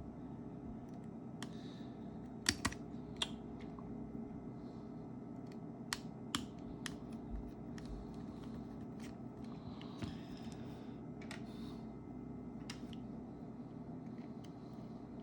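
Sparse, irregular sharp clicks and taps of small tools and parts being handled on a smartphone, over a steady low hum.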